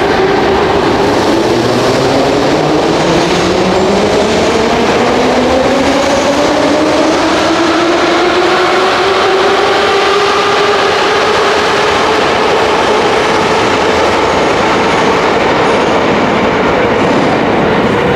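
Moscow metro train pulling out of the platform: several motor whines rise together in pitch over the first half as it gathers speed, then hold steady over the running noise of the wheels on the rails.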